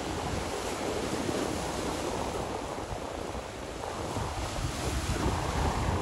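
Sea waves washing in: a steady rush of surf that swells slightly near the end, with wind rumbling on the microphone.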